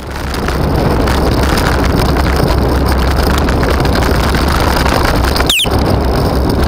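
Wind buffeting a bicycle handlebar camera's microphone while riding, a steady loud rumble with road noise under it. About five and a half seconds in comes a brief high squeak, then a very short dropout.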